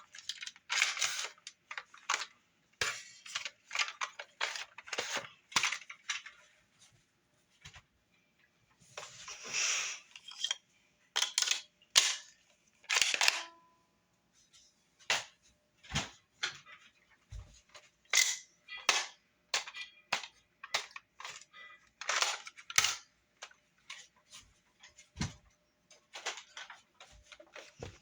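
Nerf blasters and a paintball gun being handled and reloaded: a long run of irregular sharp clicks and clacks, with a few longer rattling bursts.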